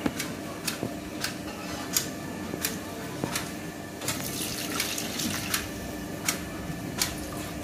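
Water poured from a plastic bottle into a small stainless steel bowl, a steady splashing pour with sharp ticks through it. The water is being measured out by the cupful.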